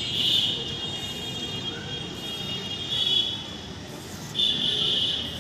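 Fishing reel's drag buzzing in three short high bursts, at the start, about three seconds in and near the end, as a large hooked fish pulls line against the bent rod.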